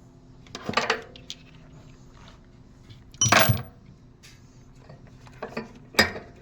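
Steel impact sockets clinking and clattering as they are handled and set down. There are three short clatters: about a second in, a louder one just past three seconds, and another near the end.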